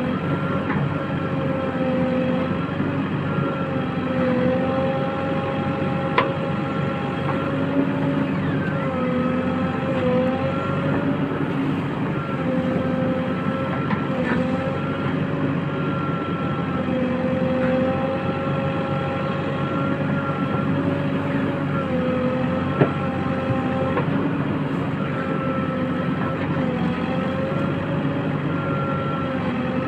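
JCB 3DX backhoe loader's diesel engine running steadily, its pitch dipping briefly every few seconds as the loader works, with a few sharp knocks.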